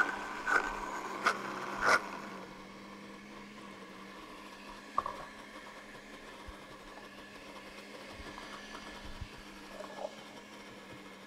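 Blender jars and lids being handled on a countertop: a few sharp clicks and knocks in the first two seconds, then a faint steady hum with one clunk about five seconds in and a smaller one near ten seconds.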